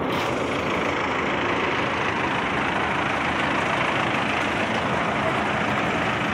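Mahindra Arjun Novo 605 DI tractor's diesel engine running steadily.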